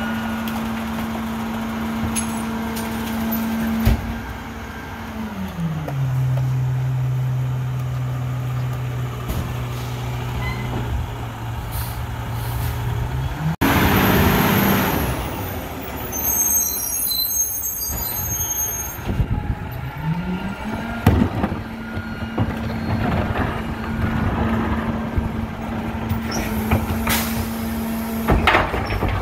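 Diesel engine of a Heil rear-loading recycling truck running steadily. Its pitch drops about four seconds in and rises back again around twenty seconds. A loud air-brake hiss comes near the middle.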